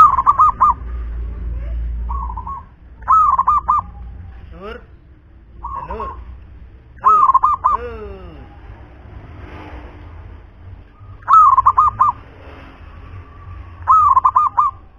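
Zebra dove (perkutut) cooing: a short phrase of three or four rapid, clipped coos, repeated about every three to four seconds, five times loudly with a couple of softer ones in between.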